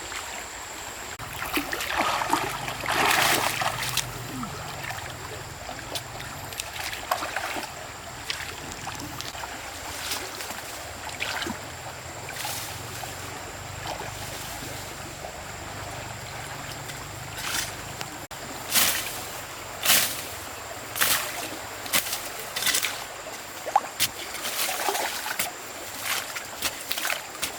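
Running water in a shallow stream, with louder splashing a couple of seconds in and a run of short, sharp splashes through the second half.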